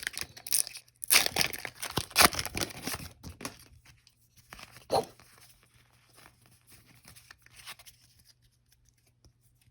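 Foil Pokémon booster pack wrapper being torn open and crinkled: a run of loud ripping over the first three seconds or so, a sharp crackle about five seconds in, then quieter rustling as the wrapper and cards are handled.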